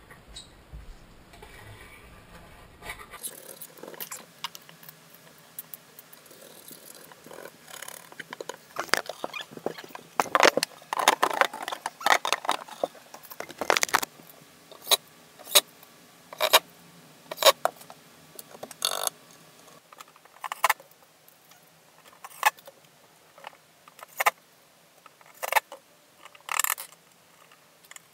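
Kitchen cabinet doors and their metal hinge hardware being refitted: a run of sharp clicks and clacks, closely bunched in the middle, then spaced about one a second.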